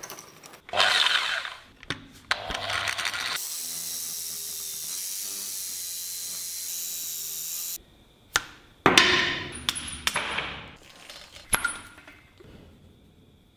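Hand-filing and hacksawing the band saw's vise handle clamped in a bench vise: separate rasping strokes of about a second each, with a few metal clinks. In the middle there is a steady hiss with a low hum for about four seconds.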